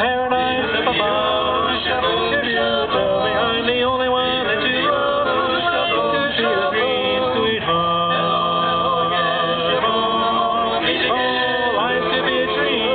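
A male vocal quartet singing a song together in harmony, several voices holding notes at once.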